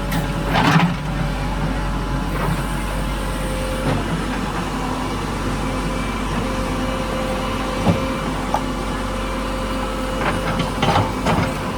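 JCB 3DX backhoe loader's diesel engine running steadily, with a few sharp metallic knocks: one near the start, one about two-thirds through, and several close together near the end.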